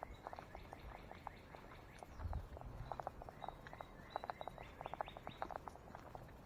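Footsteps along a walking trail, many short irregular steps, with a few faint bird chirps; a low thump about two seconds in.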